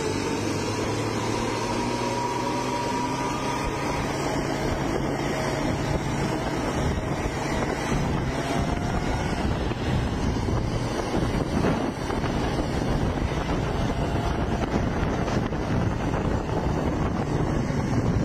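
Diesel bus engine running at speed under a steady rush of road and wind noise, heard from on board a moving bus; a faint whine drifts slowly up and down in pitch.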